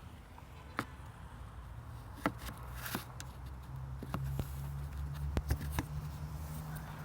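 Volkswagen CFNA 1.6 petrol engine running cold: a steady low hum that grows stronger about halfway through, with scattered sharp clicks. This is the knock that the engine makes when cold.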